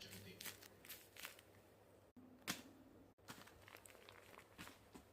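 Faint crinkling of paper being handled, a few short sharp crackles, the loudest about two and a half seconds in.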